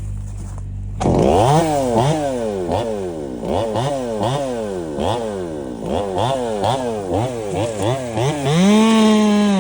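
Two-stroke chainsaw engine idling, then revved up and down over and over, about twice a second. Near the end it holds at high revs.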